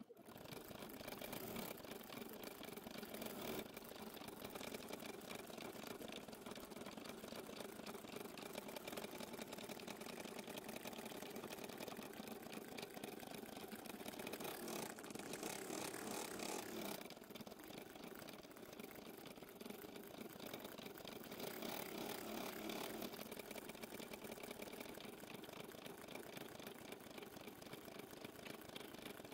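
Embroidery machine stitching: a fast, steady rattle of needle strokes that runs on without a break, dipping a little in level about halfway through.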